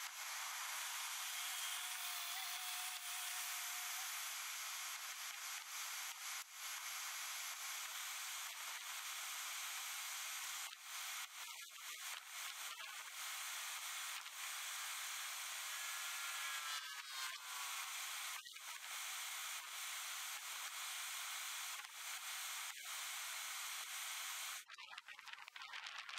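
Water rushing through a campsite hookup hose: a steady hiss over a faint steady hum, shut off abruptly near the end.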